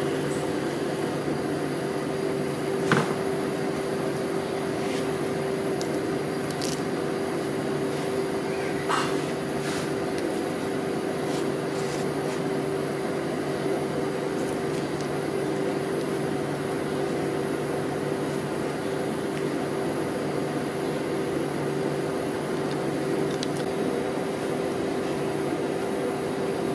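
Steady electric hum of an ice cream roll machine's refrigerated cold plate running, with a couple of light clicks and taps from the utensils, the sharpest about 3 seconds in and again about 9 seconds in.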